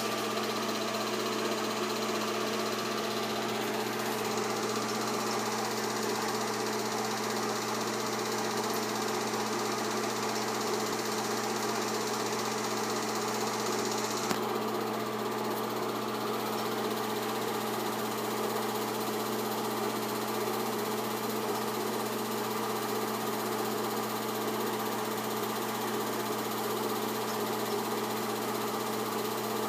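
8mm film projector running with a steady mechanical whir. A short click comes about halfway through.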